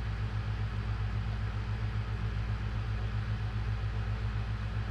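Engine idling: a steady low hum with a quick, even pulse.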